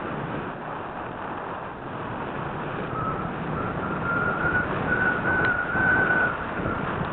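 Airflow rushing over a small onboard camera on a model aircraft in flight, with a thin whistle that drops out and comes back about three seconds in, creeping slightly up in pitch before fading near the end.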